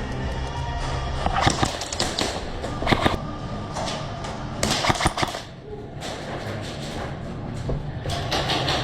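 Airsoft guns firing in several short rapid volleys, sharp snapping shots in clusters.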